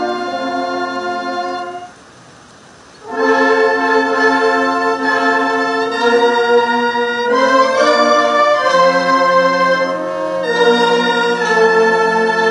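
Ceremonial brass band playing slow, held chords, with a short break about two seconds in before the chords resume.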